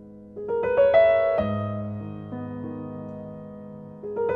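Background piano music: a quick rising run of notes about half a second in, held notes slowly fading, then another rising run near the end.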